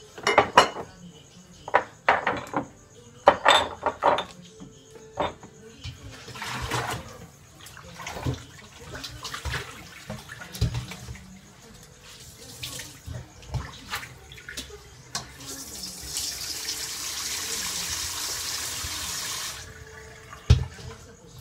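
Dishes clinking and knocking as they are washed by hand at a sink. Near the end a faucet runs steadily for about four seconds, then a single thump.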